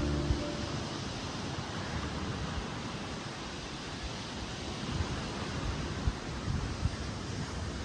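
Steady rushing noise of Atlantic surf, with wind gusting on the microphone in low thumps a few times in the second half. Background music ends just after the start.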